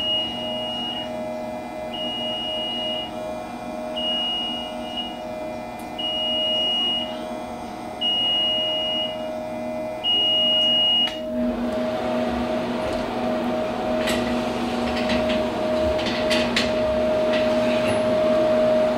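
Six high electronic beeps, each about a second long and two seconds apart, over the steady hum of a GQF cabinet egg incubator's fan. The beeps stop about eleven seconds in. Then the incubator door is opened and the egg tray slides out with a few clicks and knocks.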